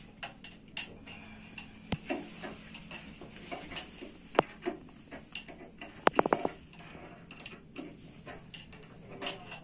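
Scattered light metallic clinks and knocks of tools or parts being handled, with a quick rattle of several clicks about six seconds in.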